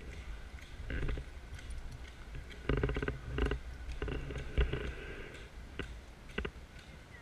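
Irregular knocks and thumps over a low outdoor rumble, the heaviest about three and four and a half seconds in, as the body-worn action camera is handled and swung around.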